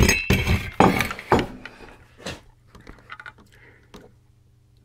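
Hard parts of a power supply being handled on a workbench: a quick run of clinks and knocks in the first second and a half, one more sharp knock a little after two seconds, then lighter, scattered taps.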